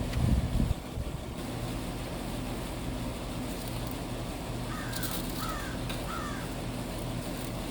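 A crow cawing three times in quick succession about five seconds in, over a steady low hum. A brief low thump or rumble comes at the very start.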